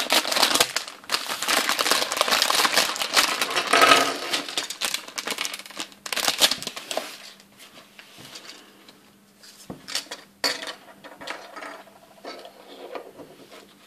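Thin clear plastic bag crinkling as it is cut open with scissors and its small plastic toy parts are shaken out, for about the first seven seconds. It then goes much quieter, with a scattering of light clicks as the hard plastic Playmobil pieces are moved about on a table.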